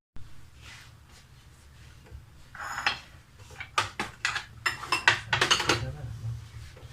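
Kitchen dishes and utensils clinking and knocking, a quick run of sharp clinks in the second half after a rustle.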